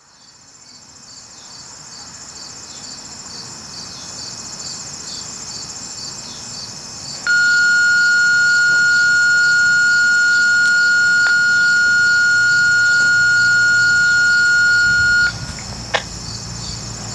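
Radio dispatch alert tone: one steady, high, loud tone held for about eight seconds, the signal that a county dispatch announcement is coming, with a click just after it ends. Insects chirp in a fast even rhythm throughout.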